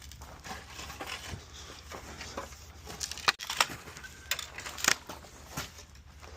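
Scattered light clicks and knocks, a few sharper ones about three and five seconds in, over a steady low hum.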